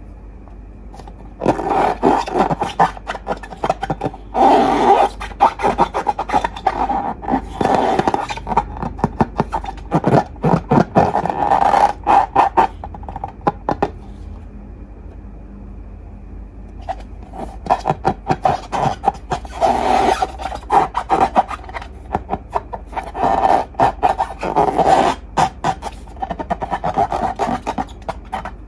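Slime being handled, a dense sticky clicking and squelching that comes in two long stretches with a pause of a few seconds about halfway through.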